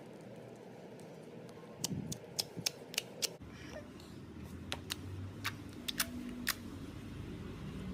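Slime being squeezed and stretched by hand, giving a string of sharp, irregular clicks and pops as air pockets burst, about a dozen over four seconds, over a steady low background.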